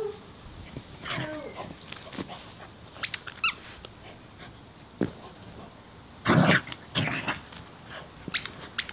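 A dog playing with a toy: a few short squeaky whines early on, then two loud barks about six and seven seconds in.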